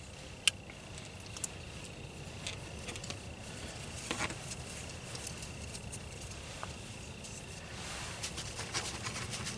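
Faint handling noise as a lensatic compass is put away into a nylon MOLLE pouch on a backpack: scattered small clicks and rustling, the sharpest click about half a second in and the rustling getting busier near the end. A faint steady high tone runs behind it.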